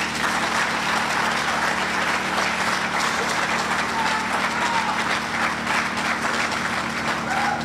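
Audience applauding: dense clapping that starts suddenly and goes on steadily.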